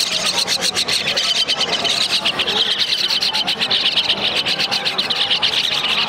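A caged flock of common mynas chattering and squawking together: a dense, rapid, high-pitched din that keeps up throughout.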